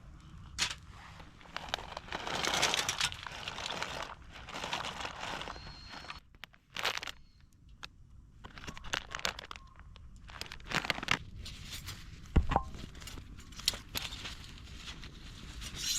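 Crinkling and rustling of handling cooking gear or food packaging, with scattered light clicks and knocks and one sharper thump about three quarters of the way through.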